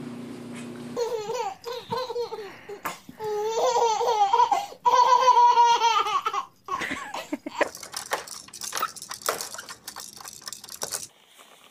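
A baby laughing in repeated high, wavering giggles and squeals, loudest about five seconds in. Quieter knocks and rustles follow near the end.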